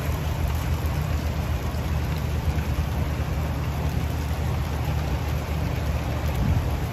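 Steady wind buffeting the microphone, with an even hiss of rain falling outdoors.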